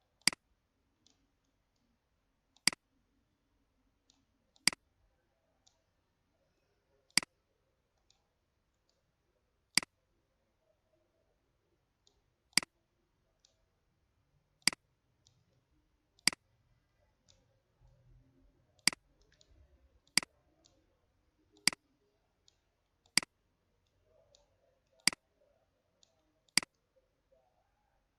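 Computer mouse button clicking: single sharp clicks every one to three seconds, with fainter ticks in between.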